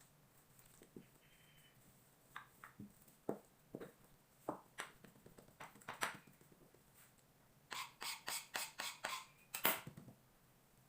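Scattered light taps and clicks, then a quick run of about eight taps at roughly five a second near the end, followed by one sharper click.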